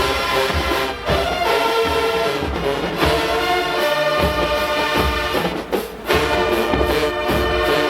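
University marching band playing loud brass chords over drum hits, with two short breaks in the music, about a second in and near six seconds.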